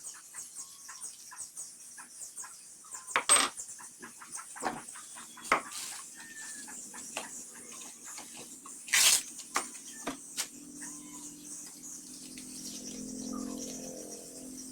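Irregular metal clinks and knocks from hand tools working on metal, three of them much louder, about three, five and nine seconds in. They come from the job of widening the hole in a boat's stern for the propeller-shaft bushing. A steady high-pitched chirring runs throughout, and a low hum sets in near the end.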